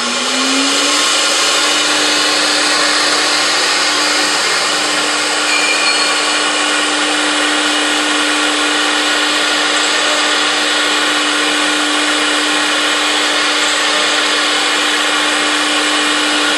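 CNC router spindle spinning up in the first second, then running at a steady high whine over a loud rushing noise as the bit cuts through the wood-panel board.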